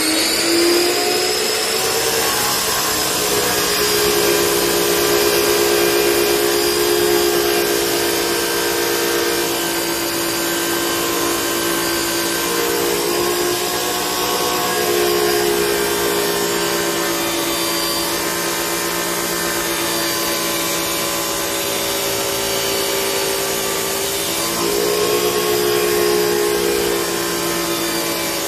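Ozito abrasive cut-off saw whining as it winds up to speed at the start, then its spinning disc grinding through a metal pipe, throwing sparks. The motor's whine shifts in pitch a few times as the disc is pressed into the cut.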